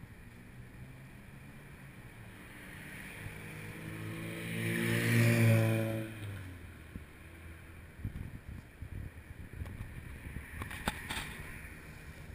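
A car drives past on the street, its engine and tyre noise swelling to a peak about five seconds in and then fading away. Afterwards wind buffets the microphone, with a few sharp clicks near the end.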